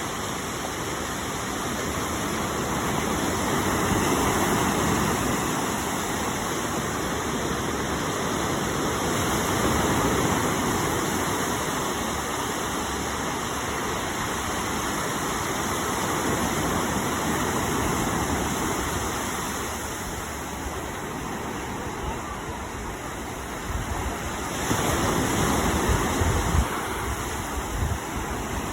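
Rushing noise of waves and wind, swelling and easing every several seconds, with wind buffeting the microphone in gusts near the end.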